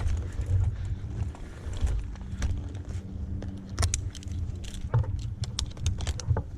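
Scattered light clinks and rattles, thickest about four to six seconds in, over a low steady rumble with a faint hum.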